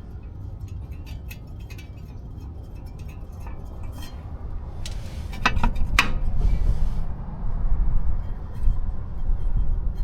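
Light metallic clinking of steel flanged nuts being handled and started by hand onto the spindle studs, scattered small clicks with a sharper cluster about halfway through. A low rumble grows louder over the second half.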